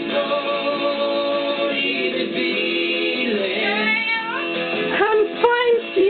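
Music with singing and guitar. Near the end a few loud, gliding, voice-like calls rise over it.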